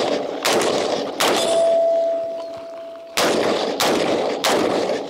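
Norinco CQA 5.56 mm AR-15-type (M4 copy) rifle fired five times in single shots, with a pause of about two seconds after the second. A struck steel target plate rings with one steady tone through the pause.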